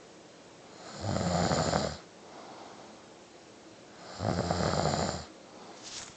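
A sleeping person snoring: two loud snores about three seconds apart, each lasting about a second.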